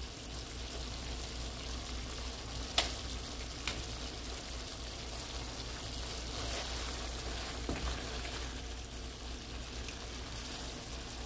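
Chicken in cream sauce sizzling and bubbling in a frying pan as spaghetti is tipped in and moved about, with a few sharp clicks of utensils against the pan, the loudest about three seconds in.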